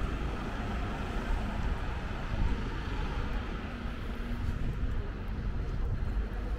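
Steady low rumble of outdoor city ambience, with no single event standing out.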